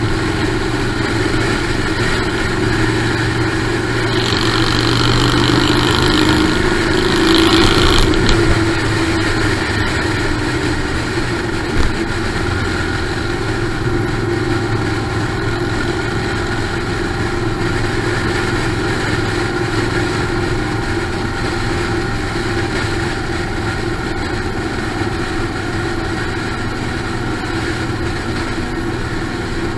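Motorcycle engine running at cruising speed, with wind and road noise over the microphone. It grows louder and rises a little in pitch about five to eight seconds in, and there is a single short knock about twelve seconds in.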